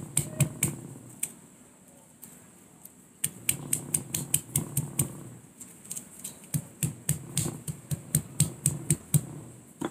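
Quick light taps of a small hand-held pestle on the charred shell of a roasted cashew nut, cracking it open on a hard block. A few taps, a pause of about two seconds, then steady tapping at about three taps a second.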